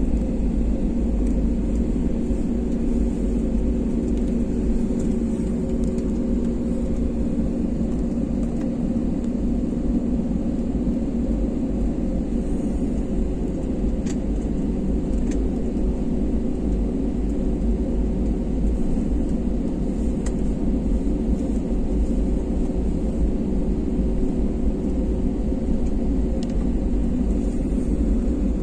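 Steady hum and rumble of an airliner's jet engines at low taxi thrust, heard from inside the cabin, with a few faint clicks.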